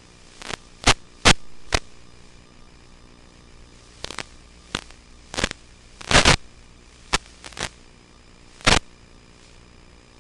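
Steady static hiss from an analog FPV video link, broken by sharp crackles and pops as the radio signal breaks up. The crackles come in irregular clusters, loudest about a second in and again just after six seconds.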